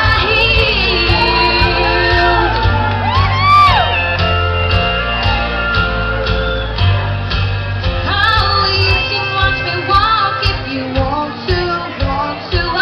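A woman singing a country-pop song live into a microphone over backing music, with a sliding vocal run a few seconds in. About nine seconds in, the steady bass gives way to a pulsing beat.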